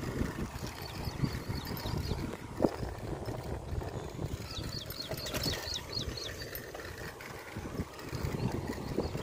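Wind buffeting the microphone and a low uneven rumble while riding a bicycle along a paved path. About halfway through comes a quick run of short, high, falling chirps.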